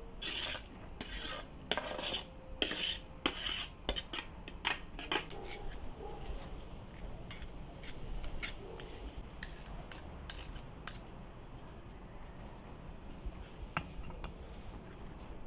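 Metal spoon scraping and clinking against an aluminium pot and colander: a quick run of scrapes and clinks in the first five seconds, then occasional single clinks.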